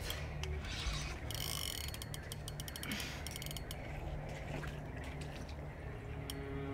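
Spinning reel on a catfish rod clicking in rapid runs a little over a second in, then in scattered single clicks, while a hooked catfish snagged in weed is played.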